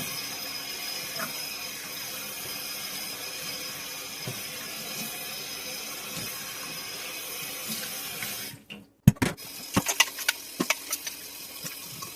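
Tap water running steadily into a sink as fresh mullein leaves are rinsed under it. The water cuts off suddenly about eight and a half seconds in, followed by a string of sharp clicks and knocks.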